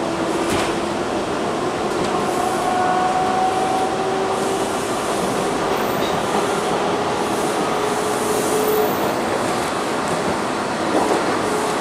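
Toronto T-1 subway train running at speed, heard from inside the front car: a steady rush of wheels on rail with a faint whine that slowly rises in pitch.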